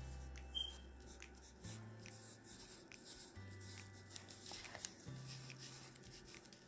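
Pencil writing on paper in short strokes, over quiet background music with a slow bass line that changes note every second or two.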